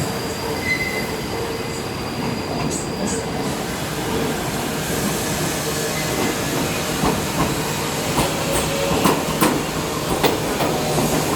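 New York City subway train running on steel rails, a steady rumble with sharp wheel clicks that grow more frequent in the second half.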